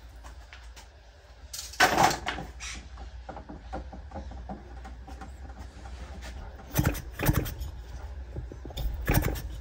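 Knocks and clatter of a disassembled chainsaw's parts being handled on a rubber workbench mat, over a low steady hum. There is a cluster of knocks about two seconds in, more around seven seconds, and a last cluster near the end.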